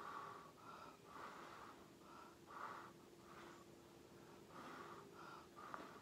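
Short, quiet puffs of breath blown onto wet acrylic paint, about two a second, pushing the paint across the canvas in a Dutch pour.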